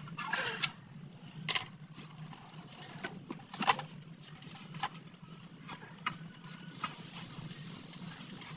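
Metal tools and shock-absorber parts clinking and knocking against each other in separate sharp clicks. A steady hiss comes in about two thirds of the way through and holds.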